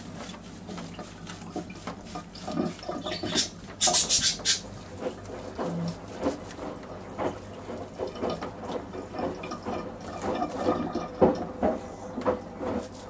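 Water splashing and dripping into a dog bath as hands rub water and shampoo through a wet poodle's curly coat, in a run of small irregular splashes with a louder splash about four seconds in.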